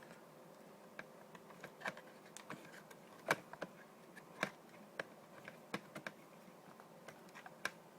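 Irregular light clicks and taps as a 2.5-inch hard drive is handled and angled down into the drive bay of a mini PC case, the loudest a little after three seconds in.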